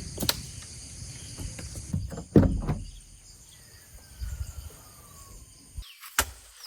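Sharp knocks and clicks of handling, with a louder clatter and rustle about two seconds in, over a steady high chirping of insects. The background cuts off abruptly near the end.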